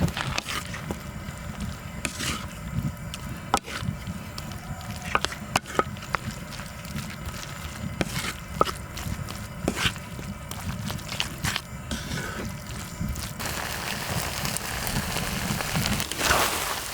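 Metal utensils clicking and scraping on a cast-iron cauldron-lid griddle as fried rice is stir-fried, over a steady low burner rumble. A broader sizzling hiss rises in the last few seconds.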